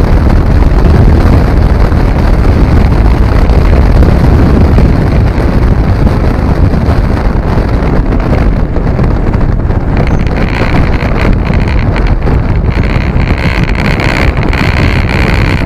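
Wind rushing over the microphone of a moving TVS Apache RR310 motorcycle, with the bike's single-cylinder engine running underneath.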